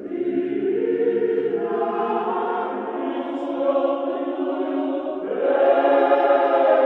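A choir singing slow, sustained chords of Orthodox church chant; the chord changes and grows louder about five seconds in.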